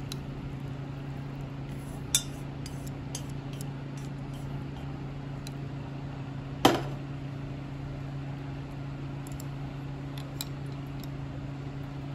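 Chopsticks and a metal pot clinking against a ceramic bowl: light ticks and taps, a sharp clink about two seconds in and a louder clack about halfway through. A steady low hum runs underneath.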